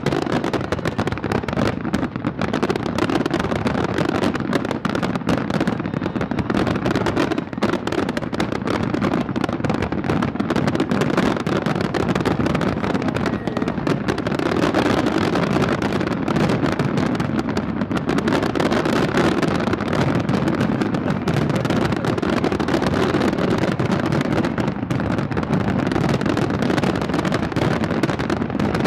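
Fireworks going off in a continuous barrage, many overlapping bangs and crackles.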